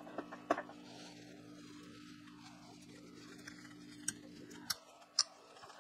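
Hand tapping a 10 × 1.5 thread with a plug tap turned in a tap wrench: a few sharp metal clicks and ticks as the tap is worked. A low steady hum in the background cuts off near the end.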